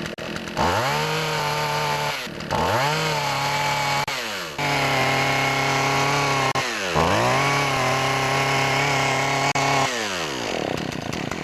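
Poulan Pro PP4620AV two-stroke chainsaw revved up four times, each time holding for about two seconds before dropping back, then falling off near the end. It runs rich, as if the choke were on, because its air filter is clogged, and it does not reach its full RPM.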